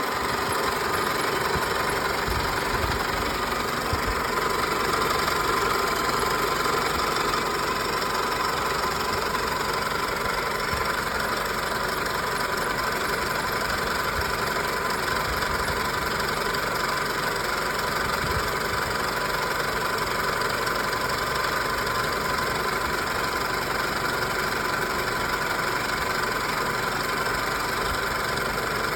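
2000 Toyota Camry engine idling with the A/C compressor engaged, with a steady high-pitched squeak over the engine noise. The squeak is the fault being recorded and appears only when the A/C compressor is engaged; its cause is unknown.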